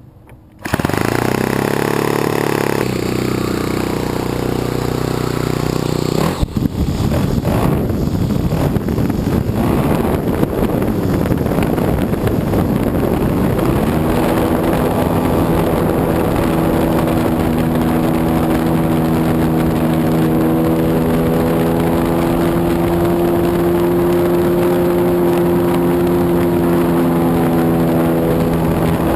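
Saito 65 four-stroke glow engine of an RC plane running at a steady pitch. It comes in abruptly near the start, turns rougher and noisier for several seconds, then settles into a clear, even note from about halfway.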